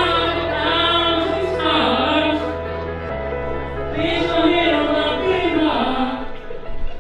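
A man singing a slow melody with long held notes into a microphone, over an instrumental backing with sustained bass notes that change about three seconds in.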